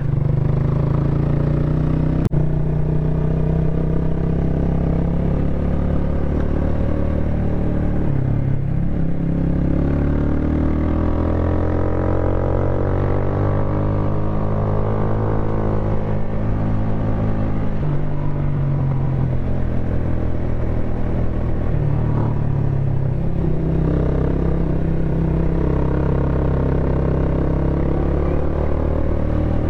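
Motorcycle engine running while riding along, its note rising and falling with the throttle, with a brief dip about eight seconds in.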